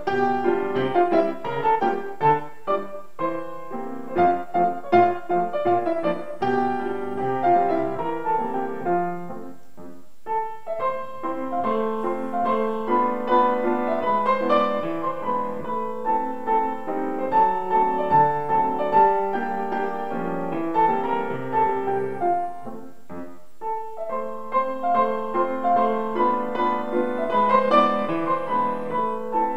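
Solo grand piano playing a classical piece, with a brief lull between phrases about ten seconds in and another a little after twenty seconds.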